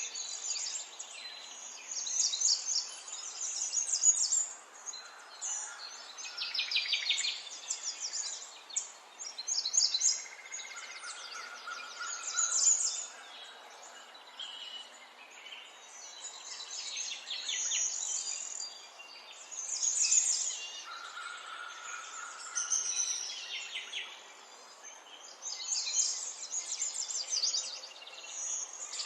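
Songbirds singing: short, rapid chirping and trilling phrases, one after another every second or two, over a steady background hiss.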